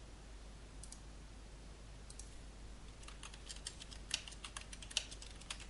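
Typing on a computer keyboard: two lone clicks, then a quick run of keystrokes from about three seconds in, with two strokes louder than the rest.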